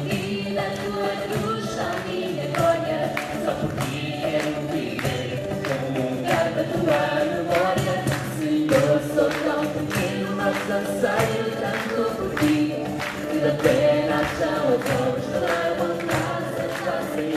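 Live Christian song sung by several voices together, with acoustic guitars, a violin and a steady hand-played percussion beat.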